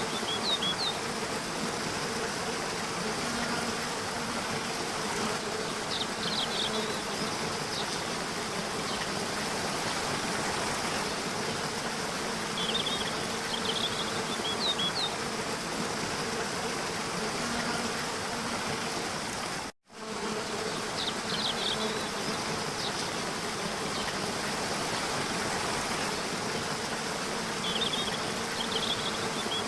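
Waterfall rushing steadily, with a faint steady buzz underneath and short clusters of high chirps every several seconds. The sound cuts out for a moment about two-thirds of the way through.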